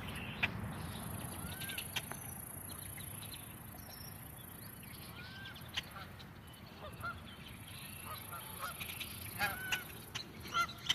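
Birds calling outdoors: many short, curved calls scattered throughout, coming thicker from about seven seconds on, over a steady low rumble and an on-off high hiss.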